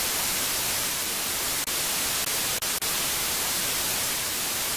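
Steady, loud static hiss like white noise, broken by a few very short dropouts.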